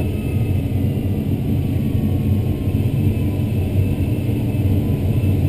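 Steady airflow noise over the canopy of an ASK-21 glider in flight, heard from inside the cockpit as a low, even rush. A faint thin tone slowly falls in pitch in the first half.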